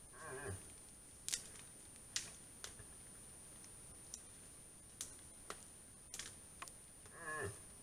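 Moose calling: two short calls, each about half a second and sliding steeply down in pitch, one at the start and one near the end. Scattered sharp clicks between them.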